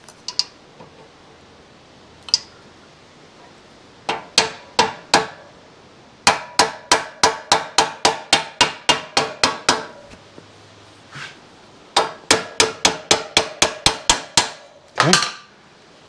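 A hammer tapping a greased wheel axle through the hub and swing arm of a Yamaha YL2C Trailmaster 100, in runs of quick, ringing metal taps about four a second. The longest run has about fifteen taps and the next about a dozen, with pauses between the runs. The axle is going in tight because the axle nut hardware was not loosened enough.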